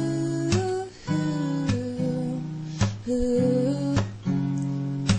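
Background music: an acoustic guitar piece with sustained notes and brief pauses between phrases.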